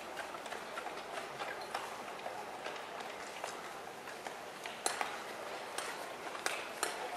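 Steady background hubbub at a speed-skating rink, with scattered sharp clicks and knocks, most of them in the second half.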